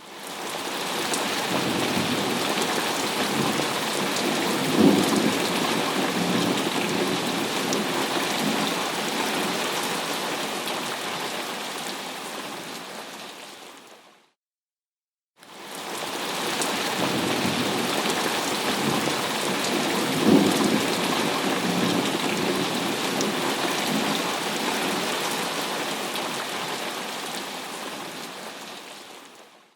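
Thunderstorm: steady heavy rain with low rolling thunder and a sharp crack of thunder about five seconds in. It is a short recording of about fourteen seconds that fades in and out and plays twice, with a second of silence between the passes.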